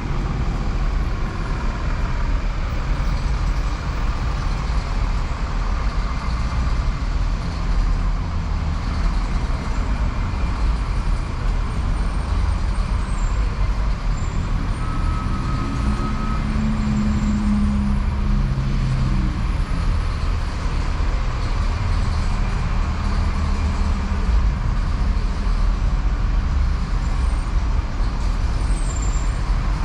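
Street traffic: a steady rumble of passing motor vehicles, with one engine's hum swelling about halfway through.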